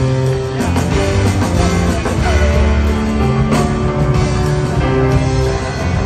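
Live rock band playing: electric guitar with bending notes over bass, drums and keyboards in a steady groove, heard from within the audience of an arena.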